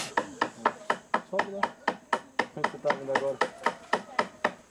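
Rapid, evenly spaced knocks of a tool striking wood, about five a second, like chipping or chopping at wood.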